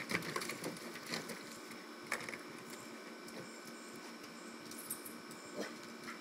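A springer spaniel puppy's paws and claws scrabbling on a plastic wading pool and tapping on wooden deck boards: a cluster of short scratches and taps at the start, then single taps about two seconds in and near the end.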